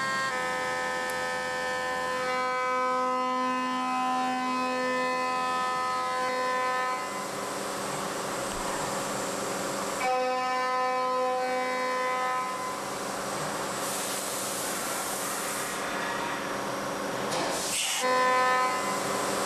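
CNC milling machine running: a steady whine made of several held tones from the spindle and drives, with stretches of hissing coolant spray and a short burst of hiss near the end.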